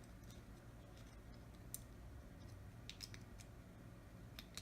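Faint, scattered clicks and ticks of small plastic and metal phone parts being handled as an LG G3's internals are fitted into a new screen frame, over near-silent room tone.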